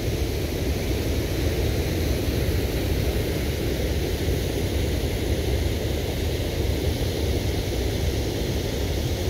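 Steady rushing noise of the muddy Rio Salgado flowing past its low concrete dam, heaviest in the low end.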